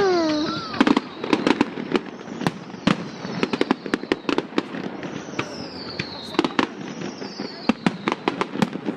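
Fireworks display: a steady stream of sharp bangs and crackling pops from bursting shells, with a high whistle sliding slowly down in pitch about midway.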